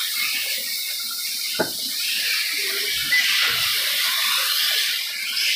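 1/8-scale electric RC buggies running on the track, a steady high hiss of motors and tyres, with one sharp knock about one and a half seconds in.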